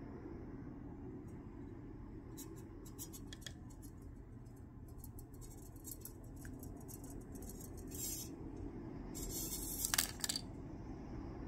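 Light clicks and taps of small pieces and metal tweezers being handled on a plastic weighing tray and pocket scale, with a brief scraping rattle about nine to ten seconds in.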